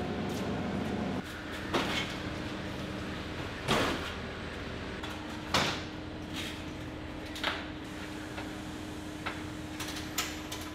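Wooden pallet being handled among loaded flower trolleys in a truck: four sharp wooden knocks and clatters about two seconds apart, over a steady machine hum, with a run of quick rattles near the end.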